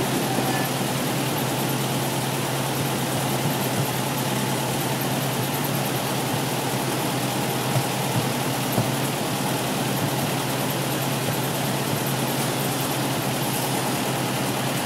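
A 1972 Porsche 914's 2056cc Type 4 flat-four on twin Dellorto carburettors idling steadily on a rolling road, with no revving and an even hiss over a constant hum.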